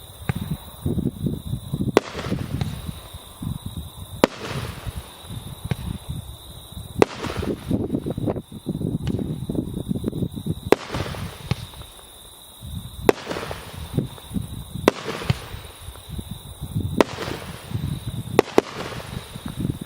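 A Megapir 'Tropical Sun' MB73 consumer fireworks battery firing its shots one after another, with a sharp bang every one to three seconds and a rumbling noise between them.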